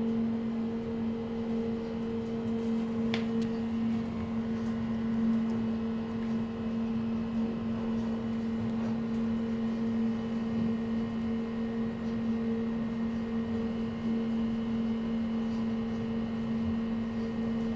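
Steady hum inside a cruise-ship passenger elevator car as it travels up between decks, one low tone with a fainter one above it, and a faint click about three seconds in.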